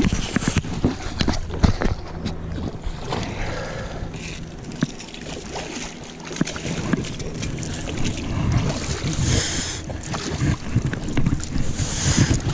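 Wind rumbling on a body-worn camera's microphone, with rustling and frequent knocks of handling noise, and two short bursts of hiss about nine and twelve seconds in.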